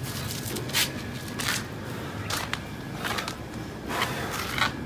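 Handling noises as a pigeon is caught and held: a few short, irregular rustles of feathers and wings, with light scuffing on a concrete floor.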